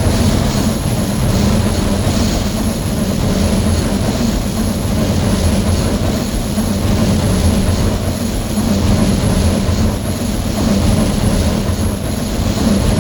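An engine running steadily at constant speed, a loud unbroken drone.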